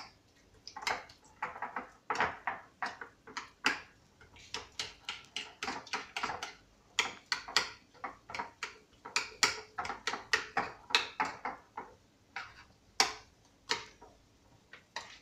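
Metal spoon scraping and clinking against a plate in quick, irregular strokes, folding thick mascarpone cheese and condensed milk together.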